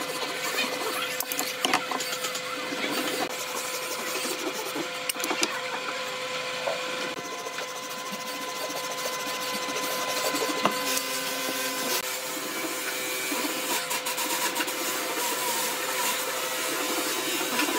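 Hand saw with fine teeth cutting through stacked pine boards in repeated back-and-forth strokes, wood scraping steadily under the blade.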